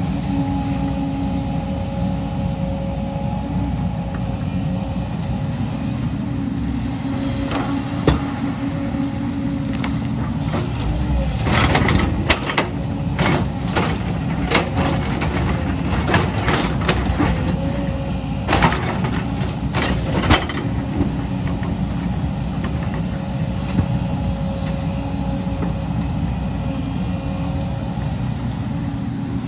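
Excavator's diesel engine running steadily with a droning hum. Through the middle there is a run of sharp metallic clanks and knocks.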